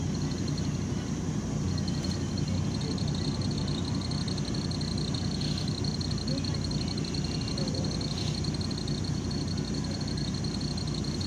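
Cabin sound of a MAZ 103 diesel city bus running: a steady low engine drone with a constant high-pitched whine over it.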